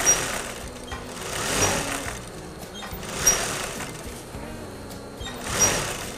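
Industrial straight-stitch sewing machine running in four short bursts, each speeding up and easing off, as a seam is stitched through satin fabric.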